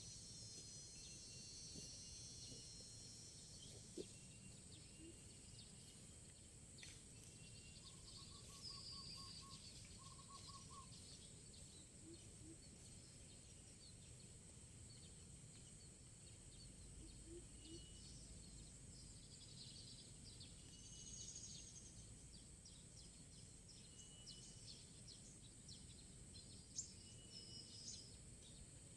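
Faint rural ambience: scattered small birds chirping over a steady high-pitched insect hum, with two short trills from a bird about a third of the way in.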